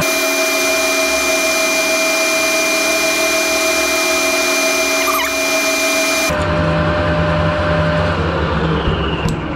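Metal lathe running while a small twist drill in the tailstock chuck bores into the hub of a cast hand wheel where it meets a stainless shaft: a hole for a locking pin. A steady whine over a hiss of cutting changes abruptly about six seconds in to the lathe's lower motor hum, and there is a single click near the end.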